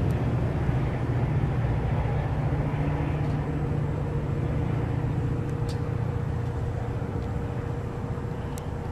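Diesel locomotive engine running with a steady low drone, slowly growing fainter.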